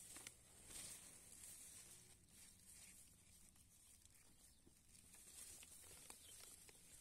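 Near silence with a faint outdoor background, a few soft ticks and a little rustling of leaves brushing against each other and the microphone about a second in.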